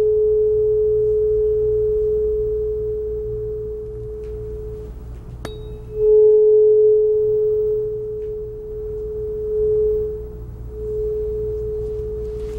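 A tuning fork tuned to the note A, from a chakra set, ringing one steady pure tone that slowly fades. Just after a light click it is struck again, about halfway through, and rings out loud once more, swelling and dipping as it is moved.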